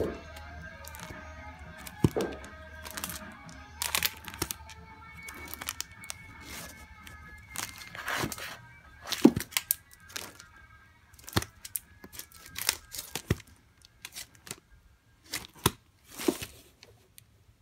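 Vinyl LP records in plastic sleeves being flipped through by hand in a wooden bin, the sleeves clacking and slapping against each other in irregular sharp clicks. Faint background music plays under it.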